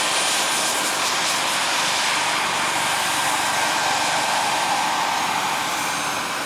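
Small gas-turbine engine of a large-scale RC Bell JetRanger model helicopter running steadily on the ground with its main rotor turning: a thin high whine over a steady rushing hiss.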